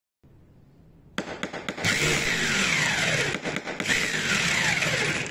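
An engine started with a few clicks, then catching and revved hard twice, the pitch falling away after each rev.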